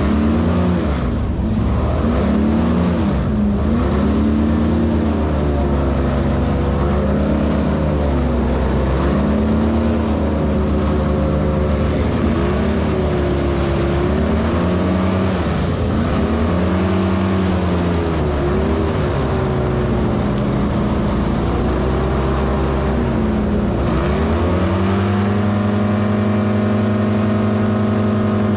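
Airboat engine and propeller running under way through the marsh, the pitch swinging up and down over and over as the throttle is worked, then climbing near the end and held steady at a higher pitch.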